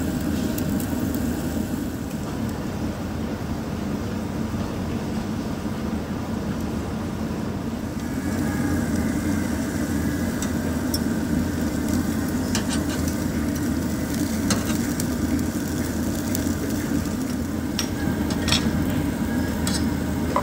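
Meat sizzling on a tabletop Korean barbecue grill over a steady low hum, with a few sharp clicks of tongs or utensils in the second half.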